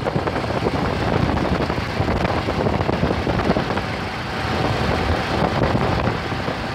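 Motorcycles riding along, their engines running under a steady rush of wind buffeting the microphone.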